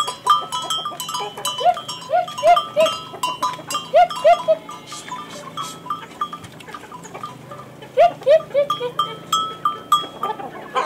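Small bells on sheep and goats clinking over and over as the flock walks, with chickens clucking in short quick runs about two, four and eight seconds in.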